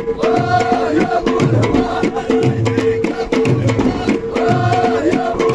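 Ahwash, Amazigh folk music from Morocco, performed live: a fast, steady percussion beat with a men's chorus singing a phrase near the start and another near the end.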